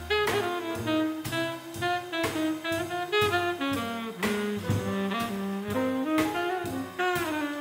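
Small swing-jazz band playing: a saxophone leads the melody over piano, walking double bass and drum kit keeping time.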